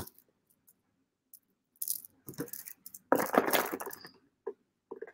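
A strand of amethyst chip beads rattling and clinking against each other as the necklace is handled, in a few short bursts, the loudest about three seconds in.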